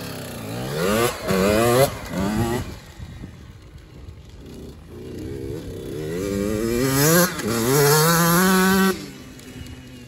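Small youth dirt bike engine revving as it pulls away. Its pitch climbs and drops back three times in quick succession near the start. Later it winds up more slowly to a long, loud, high rev that cuts off suddenly near the end.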